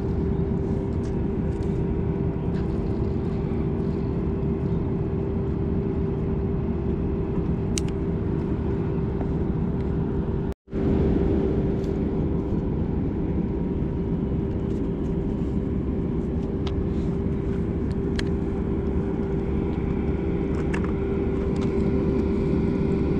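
Steady low machinery drone with one constant humming tone and no change in pitch, with a few faint clicks. The sound cuts out for a moment about ten seconds in and resumes unchanged.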